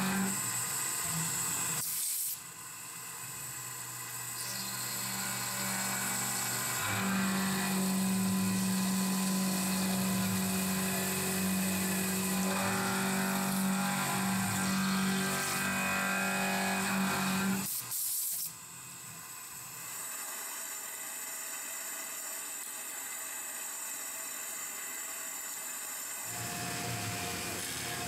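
Tormach PCNC 1100 CNC milling machine cutting titanium under flood coolant: a steady spindle whine over the splash of the coolant. The sound changes abruptly twice, about two seconds and about eighteen seconds in.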